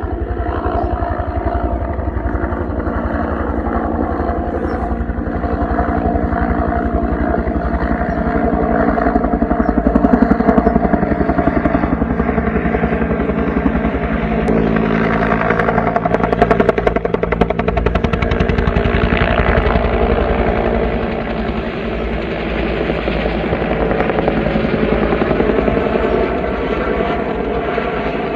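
Military helicopter flying, its rotor beating in a rapid, even chop over a steady engine drone. It grows louder around the middle and eases off near the end.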